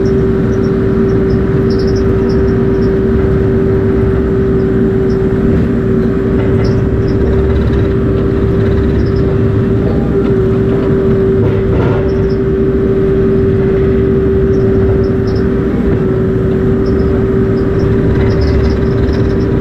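Compact tracked excavator running and working, heard from the operator's seat: a loud, steady engine rumble with a steady whine over it.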